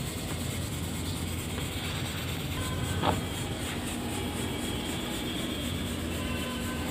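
Steady low background rumble, with a single brief knock about three seconds in.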